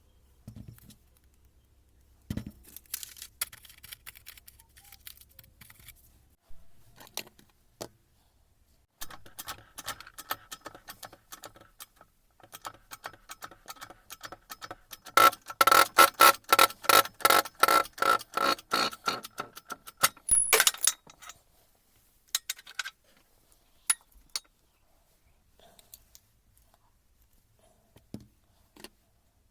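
Metal parts and tools clinking and knocking on a workbench during the strip-down of a Hilti TE 76 ATC rotary hammer. In the middle comes a run of rapid, ringing metallic clicks, about four a second, for some five seconds.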